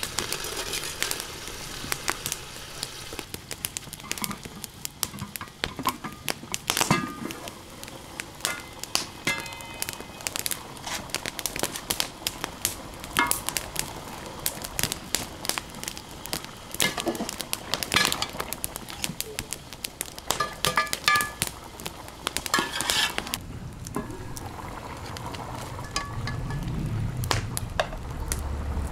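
Wood fire crackling under steel cooking pots, with a steady bubbling and sizzling from the pots. Many sharp clicks run through it, and now and then a slotted ladle clinks against the metal pots.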